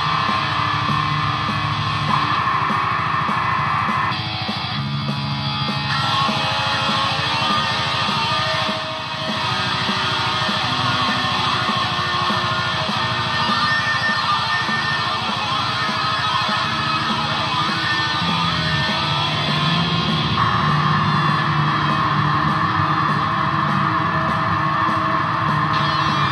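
Electric guitar played continuously through a chain of effects pedals: sustained, overlapping chords and notes that shift in pitch, with a brief drop in level about nine seconds in.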